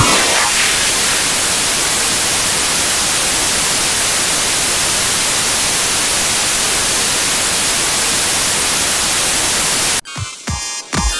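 Loud, steady static hiss like white noise, which cuts off suddenly near the end and gives way to bass-heavy electronic music.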